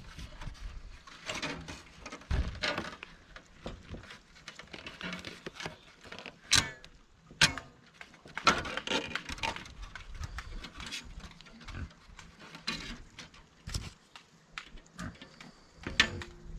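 Pigs grunting at intervals, with two sharp knocks near the middle.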